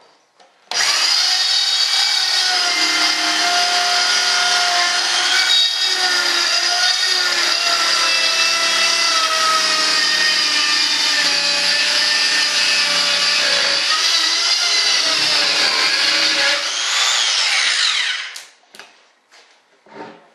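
Handheld power tool running at high speed as it trims the cured fiberglass edge of a resin composite layup: a steady high-pitched whine that starts about a second in, wavers slightly in pitch under load, then winds down and stops near the end.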